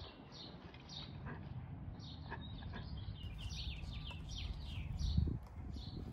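Small birds chirping, many short falling notes in quick succession, over a steady low rumble, with a louder low thump about five seconds in.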